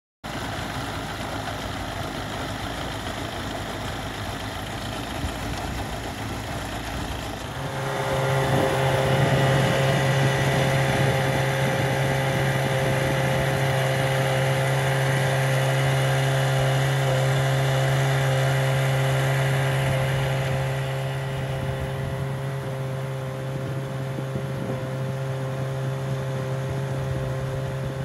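A 25 horsepower Mercury outboard runs under way, its ignition coil newly replaced, with the rush of the wake and wind over it. About seven seconds in, the engine note steps up to a louder, steady higher speed. It eases off slightly near the end.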